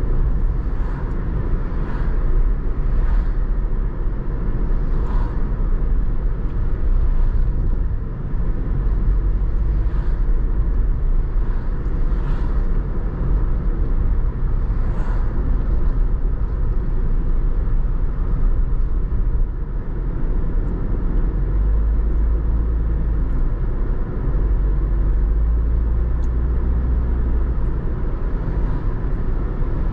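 A car driving along a road: steady low rumble of engine and tyre noise, with short faint swishes every few seconds.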